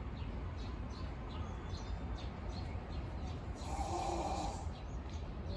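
Hippopotamus snoring: one rough, noisy snore lasting about a second, about four seconds in, over a steady low rumble.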